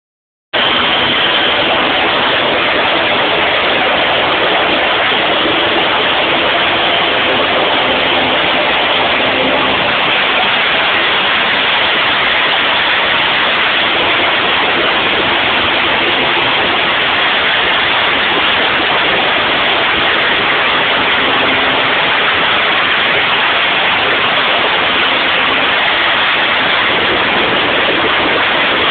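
Pratt & Whitney PT6 turbine engine running during a run-up: a loud, steady rushing noise that holds at one level throughout.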